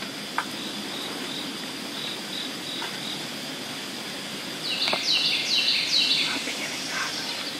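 Steady chorus of insects over woodland, with a songbird singing a quick run of repeated falling whistled notes about five seconds in, the loudest sound. A small click comes just after the start.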